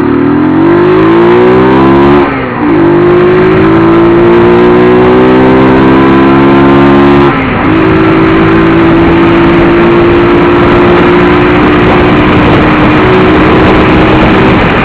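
Motorcycle engine revving, unmodified with its air filter still in the airbox. The note climbs, dips briefly about two seconds in and again about seven seconds in, then holds steady.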